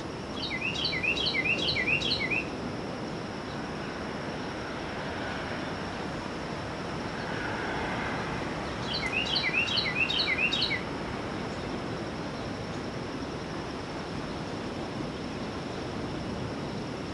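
A bird singing two short phrases, about seven seconds apart. Each phrase is a quick run of high notes that slur downward, over a steady background hiss.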